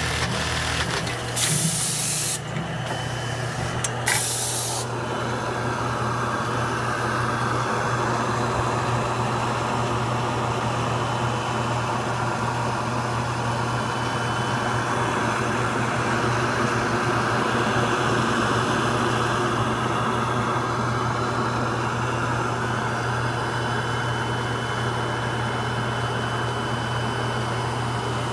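JUKI AP-876 pocket setter's pneumatic clamp cylinders venting air in two short loud hisses, about one and a half and four seconds in. After them comes a steady hum and whir of the machine running.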